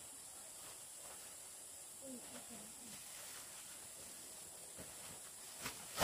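Faint steady high hiss, with a brief faint voice about two seconds in and a sharp knock near the end.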